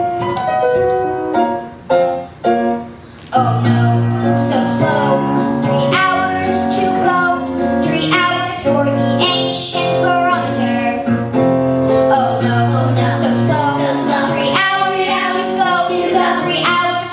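Music: a short piano introduction, then from about three seconds in a child singing a song over a piano and bass accompaniment.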